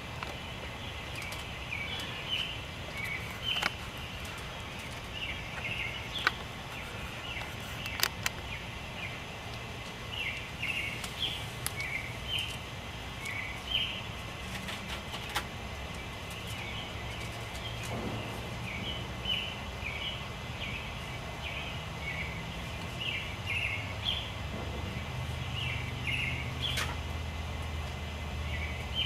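Songbirds singing in short chirping phrases, repeated throughout, over a low steady hum and a few faint clicks.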